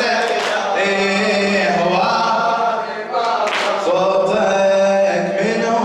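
Male voices chanting an unaccompanied Shia Muharram lament (latmiya), in long held, wavering notes.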